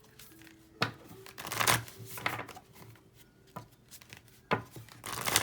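A tarot deck being shuffled by hand: a handful of separate papery swishes and sharp card taps, with short pauses between them.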